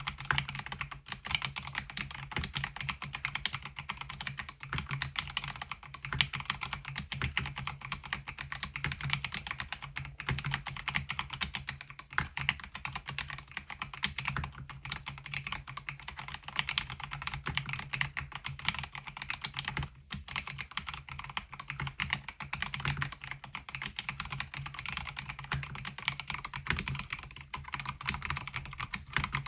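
Continuous typing on a MelGeek Mojo68 mechanical keyboard fitted with MOA-profile keycaps: a steady, dense stream of key clacks.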